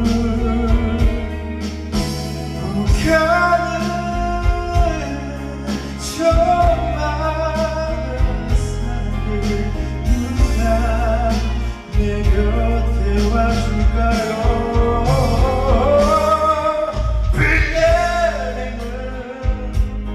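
Band music with steady drums and bass under a melody line with vibrato, sung without recognisable words.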